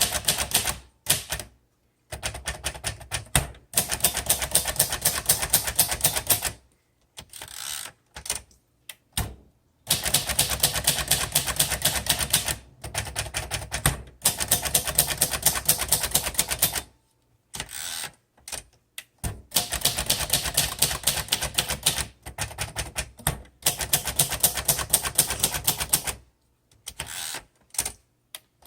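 1957 Royal Quiet De Luxe manual typewriter being typed on in flowing runs: rapid key strikes and typebar clacks, each run lasting several seconds, with short pauses between.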